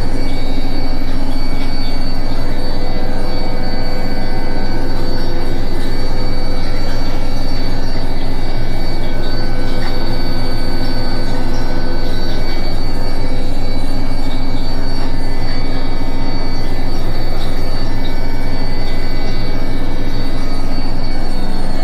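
Indesit washing machine on its final spin, the drum turning at high speed with a steady low hum and a constant high-pitched squeak over it. The squeak is a fault noise whose cause the owner does not know.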